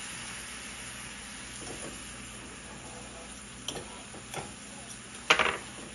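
Caramel sauce with butter sizzling in a stainless steel pan. A spoon stirs it and knocks against the pan three times in the second half, the last knock the loudest.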